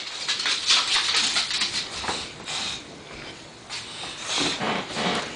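Two excited English bulldogs at a doorway: irregular noisy huffing breaths and scuffling, loudest about a second in and again near the end.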